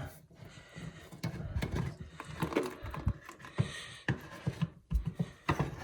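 Scattered light knocks and clicks of a toilet's water supply line being unscrewed by hand from the tank's fill-valve connection, with a little leftover water dripping out.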